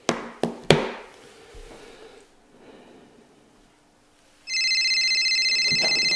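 A mobile phone set down on a wooden desk with a few sharp knocks, then, about four and a half seconds in, a phone starts ringing with a steady, high, fast-trilling ring.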